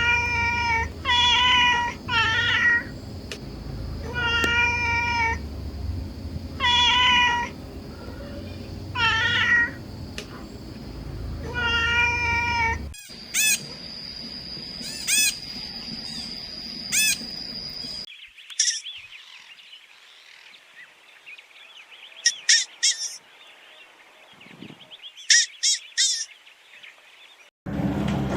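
A cat meowing over and over, about seven separate meows. Then the sound changes abruptly to thinner, higher-pitched calls and short, quick high chirps.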